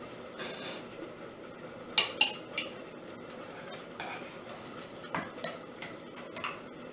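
Metal slotted spoon clinking and scraping against a stainless steel pot while boiled neck bones are spooned out into a metal bowl. A quick pair of sharp clinks about two seconds in is the loudest, and a scatter of lighter clinks follows.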